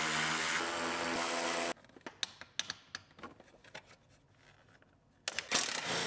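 Cordless electric ratchet running steadily as it backs out dashboard bolts, stopping suddenly a little under two seconds in. Light clicks and knocks of the tool and parts being handled follow. The ratchet starts up again with a couple of short blips and runs on near the end.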